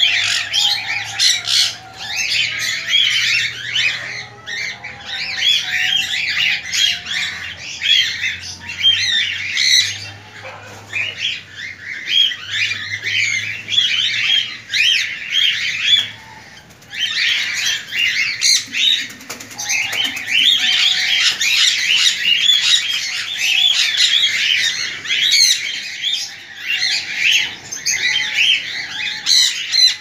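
Many small cage birds chirping and chattering at once in a dense, overlapping chorus of short high calls, which thins out briefly about sixteen seconds in.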